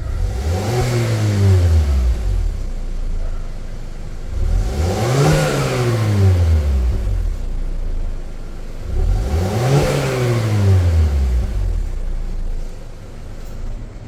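2023 Mazda CX-5 Skyactiv turbocharged 2.5-litre four-cylinder heard through its stock exhaust: idling, blipped three times, each rev climbing and falling back to idle over about two seconds.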